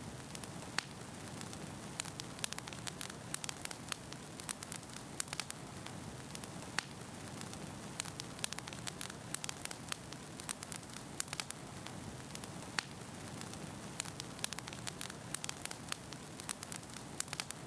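Wood fire crackling: irregular sharp pops and snaps over a steady low hiss.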